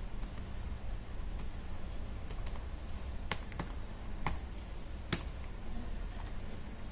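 Laptop keyboard being typed on: scattered key clicks, with a few sharper taps between about three and five seconds in as a Terminal command is typed and entered, over a low steady hum.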